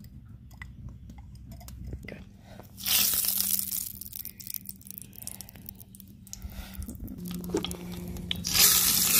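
Cooking oil sizzling and crackling on a hot, dry cast iron pot, starting suddenly about three seconds in as the oil hits the iron. Near the end it flares up louder as the oil is wiped around the pot bottom to season it.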